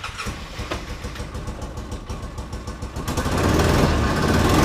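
Polaris Ranger XP 700's fuel-injected twin-cylinder engine running just after being started, with a steady pulse, then louder as it picks up about three seconds in. The engine runs rough and is not firing well: a fuel-injection problem tied to a dirty throttle body and TBAP sensor.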